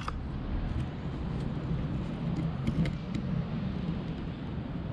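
Steady low outdoor background rumble, with a few faint ticks about halfway through.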